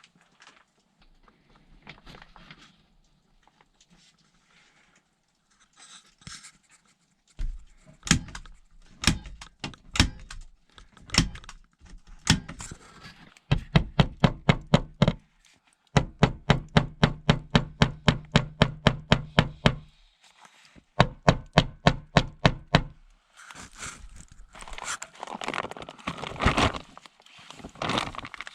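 Rapid runs of sharp knocks, a tool striking wood about six times a second in several bursts, after a few slower single strikes. Near the end they give way to rustling and crinkling.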